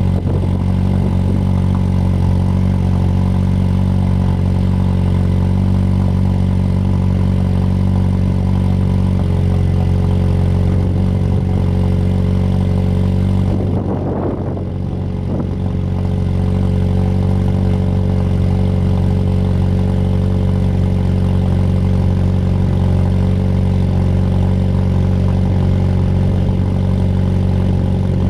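2020 Jeep Wrangler's 2.0-litre turbo four-cylinder idling steadily and loudly at a cold high idle through an AFE muffler-delete axle-back exhaust. The note changes briefly and dips a little about halfway through.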